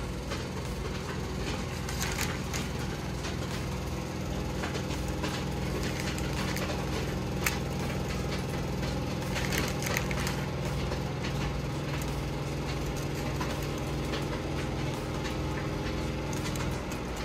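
Hands working on jalapeño poppers on a foil-lined tray: scattered crinkles, clicks and small knocks over a steady low hum.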